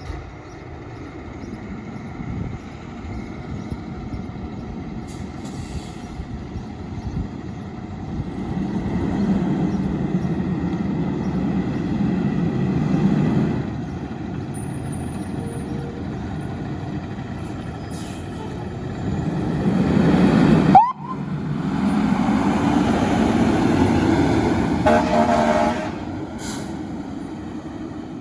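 Fire engine running on the road, its engine noise swelling twice as it comes by, with a short blast of its air horn near the end.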